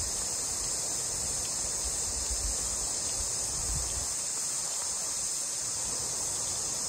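Steady, high-pitched chorus of insects, with a low rumble underneath for the first four seconds or so.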